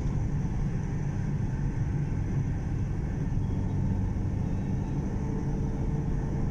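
Steady road and engine rumble of a car driving along, heard from inside the cabin.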